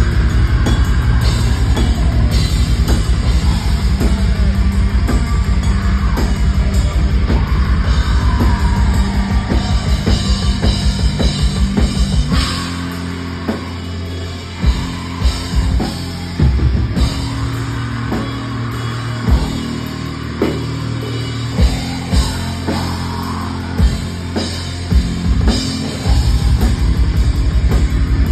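Black metal band playing live: distorted electric guitars over fast, dense drumming. About twelve seconds in it drops to a slower passage of held guitar chords and separate heavy drum hits, and the fast drumming comes back near the end.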